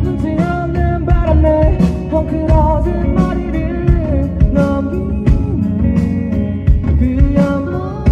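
Rock band playing live with a lead vocal singing the melody over guitars, bass and a steady drum beat.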